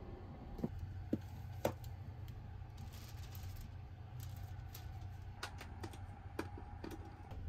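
Handling sounds over a steady low hum: a few sharp clicks and knocks and the rustle of a plastic bag being rummaged through, then, in the last couple of seconds, several clicks as a USB charger is pushed into a wall socket.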